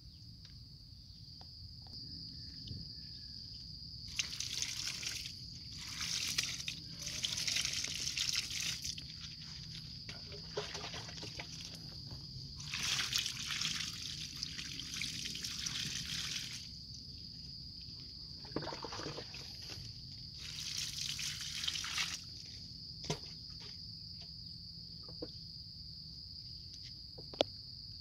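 Water poured from a plastic scoop splashing over the bare roots of a red aglaonema and onto wet ground, in several pours of a few seconds each, rinsing the old potting substrate off the roots.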